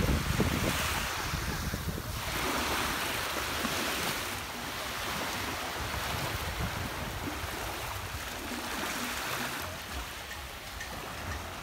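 Small waves breaking and washing up a sandy shore, the surf swelling and fading every couple of seconds. Wind buffets the microphone.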